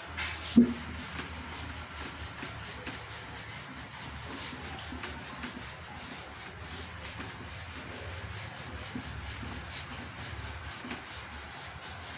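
Felt whiteboard eraser wiped back and forth across a whiteboard in rapid, even strokes, clearing the writing off. A single sharp knock about half a second in.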